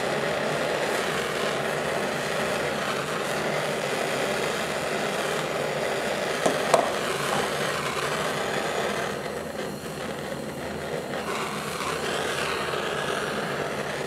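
Hand torch flame hissing steadily as it heats the copper radiator core to sweat lead solder into pinhole leaks. It goes quieter for a couple of seconds about two-thirds through, and two brief clicks sound a little past halfway.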